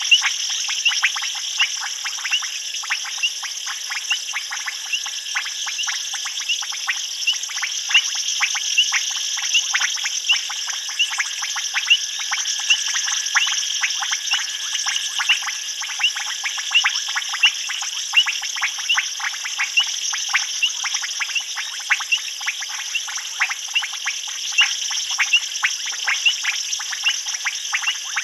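Night chorus of many frogs calling together: a dense, irregular stream of short clicking calls, several a second and overlapping. Underneath runs a steady high-pitched insect hiss.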